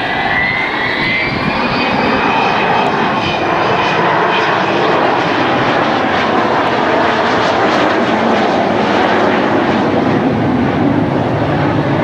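Avro Vulcan XH558's four Rolls-Royce Olympus turbojets, loud and steady as the delta-wing bomber passes low overhead, with a high whine rising in pitch over the first couple of seconds.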